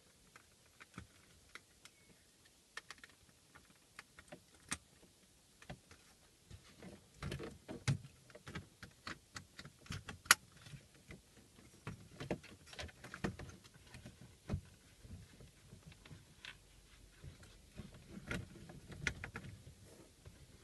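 Plastic interior trim being handled: scattered clicks, taps and knocks as the Honda Civic's centre-console panel has its wiring plugs reconnected and is pushed back into place around the gear lever, with one sharp snap about ten seconds in the loudest.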